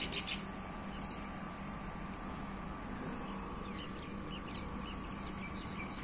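A few faint, short bird chirps over a steady background hum.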